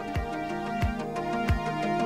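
Background music with a steady beat: a low thud about every two-thirds of a second under held notes that change pitch.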